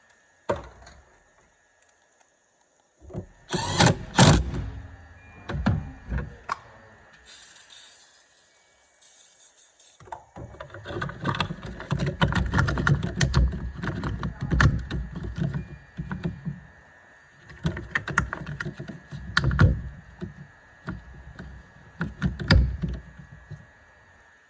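Hand tools and metal hardware being worked on a car battery: irregular clicks, knocks and rattles in clusters, with a short hiss about seven seconds in.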